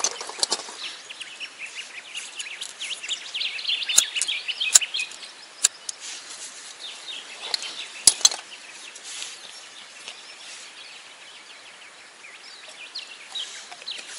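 Birds chirping and calling, busiest in the first five seconds, with a few sharp clicks and knocks of camp cooking gear being handled; the loudest is a quick pair of clicks about eight seconds in.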